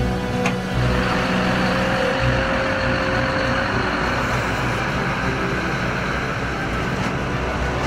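Heavy-haul truck with a multi-axle low-loader trailer passing close by: a steady diesel engine rumble and the noise of its many tyres rolling on the asphalt.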